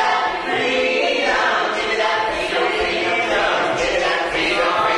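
A stage cast singing together in chorus, many voices at once.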